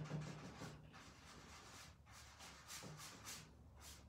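Faint scratchy strokes of a chip brush dabbing and pushing paint through a silk-screen stencil on a metal pail, with several quick strokes in the second half.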